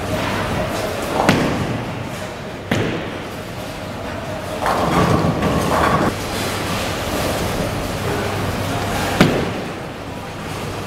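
Bowling alley: a Radical Grease Monkey bowling ball lands on the lane with a thud about a second in after release. A clatter of pins follows a few seconds later, and a second ball thuds onto the lane near the end, over the steady rumble of balls rolling in the hall.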